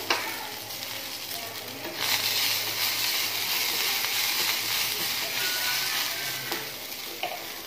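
A spice tempering sizzles in hot oil in a steel kadai as fresh coriander leaves are stirred in with a spatula. The sizzle grows louder about two seconds in and eases off near the end.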